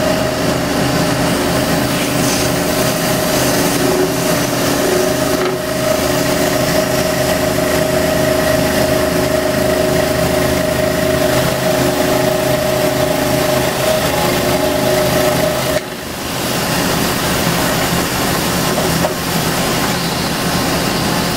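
Scroll saw running steadily, its blade sawing through a wooden car-body blank. The steady hum drops out about sixteen seconds in, and the sawing noise carries on.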